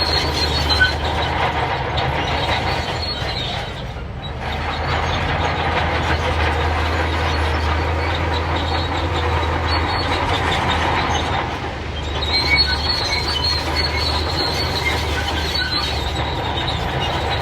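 Crawler bulldozer running with a steady engine drone, its steel tracks clanking and squealing as it moves. The track noise eases briefly twice.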